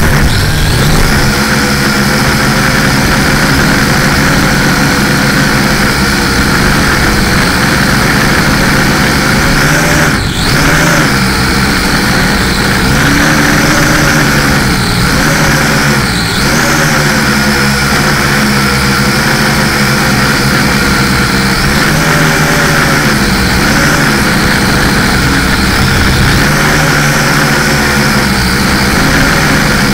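LaTrax Alias quadcopter's motors and propellers buzzing loudly close to the microphone, the pitch wavering up and down as the throttle changes, with brief dips about ten seconds in and again around sixteen seconds.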